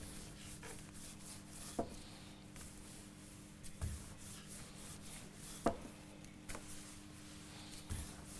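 Knife and hands working vegetables on a wooden cutting board: faint rubbing with a few scattered knocks, the sharpest about two-thirds of the way through, over a steady low hum.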